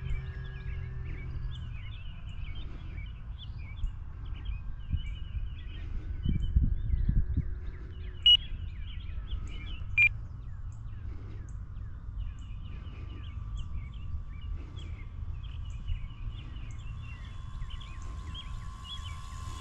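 Songbirds chirping over a low rumble of wind on the microphone, with a faint steady whine from a distant electric RC plane's motor and propeller, slowly falling in pitch. Two short beeps sound about eight and ten seconds in.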